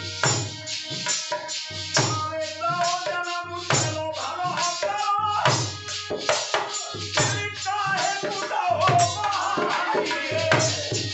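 Live Indian folk devotional music: a harmonium and a dholak drum keep a steady beat, and a man's singing voice carries a wavering melody over them from about two seconds in.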